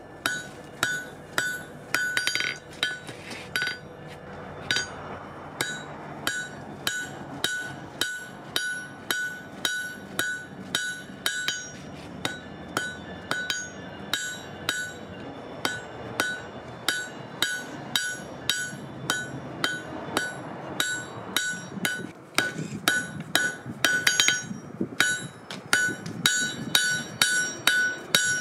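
Hand hammer forging a red-hot wrought iron bar on an anvil: steady blows about two a second, each with a bright ring from the anvil. The blows come faster and harder near the end.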